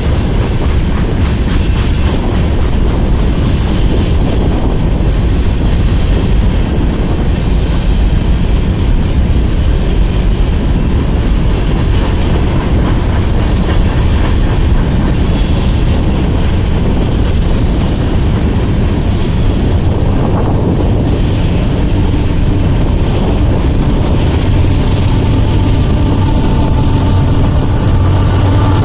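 Freight cars of a Union Pacific mixed freight train rolling past, a loud, steady rumble of steel wheels on rail that holds for the whole stretch.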